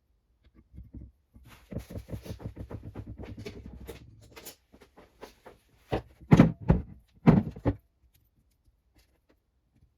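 Hand work on classic Mini radius arm parts: a run of quick clicks and scraping, then a few louder sharp knocks about six seconds in.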